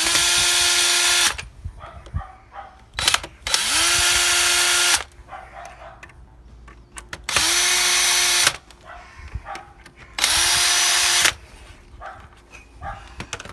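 DeWalt cordless drill driving screws through a plastic electrical box into wall plugs, in four separate runs of one to one and a half seconds. Each run spins up quickly to a steady whine, with light handling clicks between runs.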